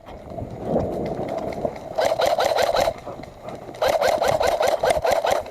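Electric airsoft gun firing two full-auto bursts, a rapid even stream of shots with the gearbox whirring, the first about two seconds in and the second, longer, from about four seconds in.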